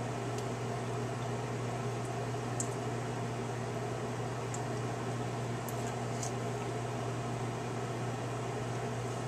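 Kitchen room tone: a steady low hum with an even hiss over it, and a few faint soft ticks.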